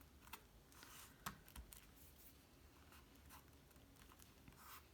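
Near silence with a few faint, scattered clicks and rustles of small cardstock pieces being handled and fitted together.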